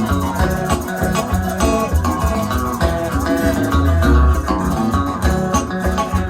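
Haitian twoubadou band playing live without singing: plucked guitar over a deep bass line, with a shaker keeping time.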